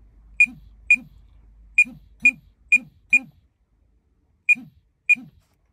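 Flysky PL18 EV radio transmitter sounding eight short high beeps, mostly in quick pairs, each paired with a brief low boom from its vibration motor.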